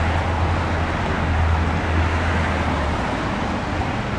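Steady road traffic noise: a continuous low rumble under an even hiss, with no single vehicle standing out.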